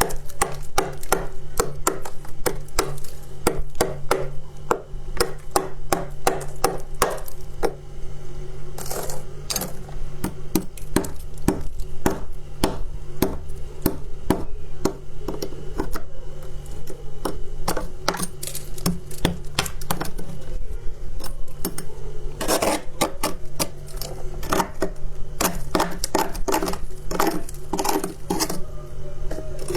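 Close-miked crunching of soft white shaved ice or freezer frost being bitten and chewed, a rapid run of crisp crunches several times a second with a few louder bursts of crunching partway through.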